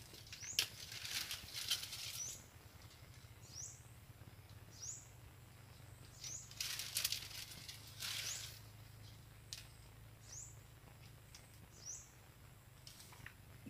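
Dry palm fronds rustling twice as the angler shifts and lifts a bamboo fishing rod. Throughout, a bird repeats a short, high, rising call about every second and a half.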